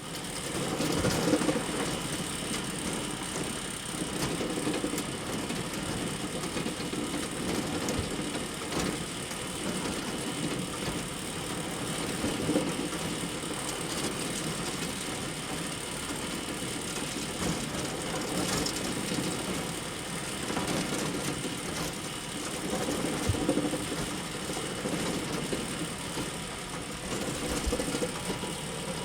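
Electronic glitch sound effects: continuous crackling static and digital interference noise, broken by scattered sharp clicks.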